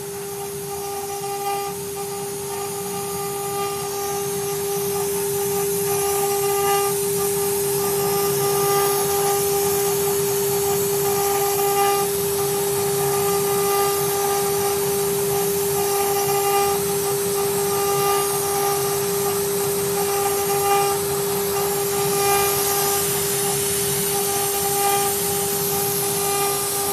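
CNC router spindle running at a steady high whine while the bit carves, with a constant hiss of cutting and overtones that swell and fade every second or two as the cut changes.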